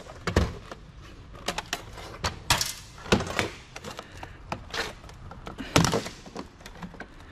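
Irregular clicks and knocks of metal and plastic parts being handled and pried apart as a CD-ROM drive is dismantled by hand. The loudest knocks come about half a second in and just before six seconds.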